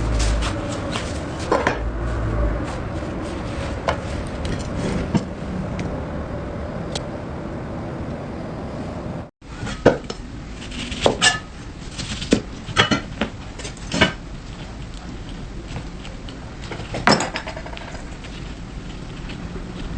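Knife knocking on a cutting board while dragon fruit is sliced: scattered sharp knocks over a steady background noise, with a brief break in the sound about halfway through and more frequent knocks after it.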